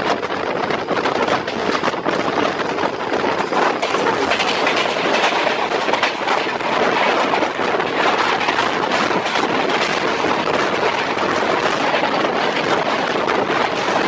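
Train running at speed on the track: a steady loud rush of wheels on rails, with irregular clatter.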